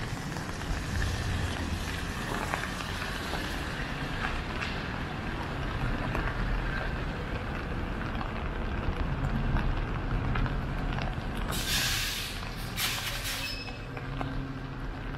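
City street traffic noise, with a heavy vehicle's engine humming steadily in the latter part and two loud hisses near the end.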